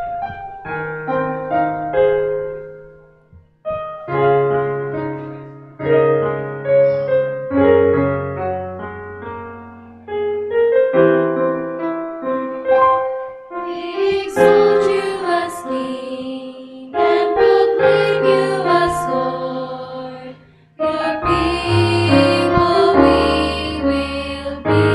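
Piano playing chords in slow phrases, each struck and left to ring and fade; the accompaniment grows fuller and brighter about halfway through.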